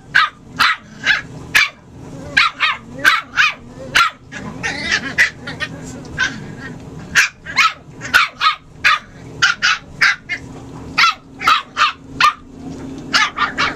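Jack Russell terrier puppies play-fighting, yapping with dozens of short, high-pitched barks and yips in quick runs of two to four.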